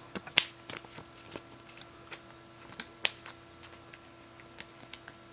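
Pokémon trading cards being handled: scattered light taps and rustles of cards, with two sharper snaps about half a second in and about three seconds in.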